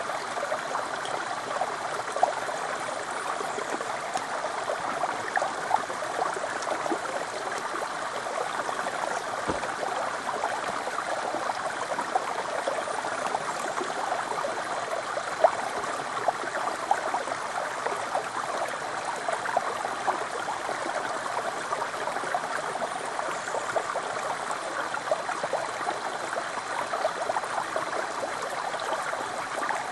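Shallow stream sliding in a thin sheet down a sloping rock slab: a steady babble of running water, with many small splashes.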